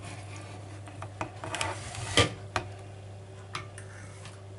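Plastic serving spoon and fork clicking and scraping against a dish and a plate while a piece of cooked salmon is lifted and eased apart: a handful of separate light taps, the sharpest about two seconds in.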